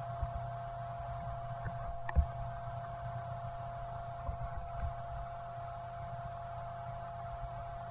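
Steady electrical hum with faint hiss, and a single sharp mouse click about two seconds in.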